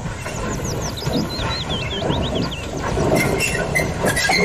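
Full-size Thomas the Tank Engine replica steam locomotive running on the track, a steady rough rumble. About a second in, a bird chirps a quick run of short, high, falling notes.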